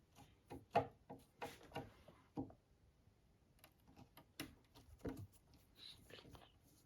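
Faint, irregular clicks and taps of a screwdriver working the screws out of the top of a Marshall MG30DFX amp's case, with a pause of about a second near the middle.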